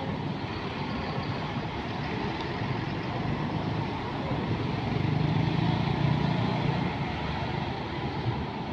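Diesel coach engine running as the bus drives off, over the steady engine noise of a bus terminal. A deeper engine rumble swells for a couple of seconds about five seconds in.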